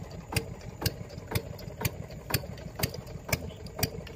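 Small boat motor idling, with a regular knock about twice a second over a steady low rumble.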